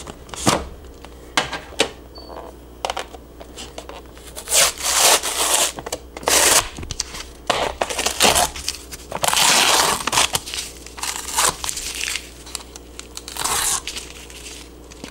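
Plastic screw lid handled with a few clicks, then the foil seal of a brand-new tub of powdered pre-workout being torn and peeled off, a run of irregular crinkling and tearing noises. The longest, loudest tear comes about two thirds through.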